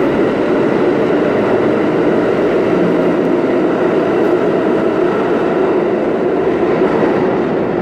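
Subway train running through the station: a loud, steady noise of wheels on rails that covers everything else, easing off right at the end.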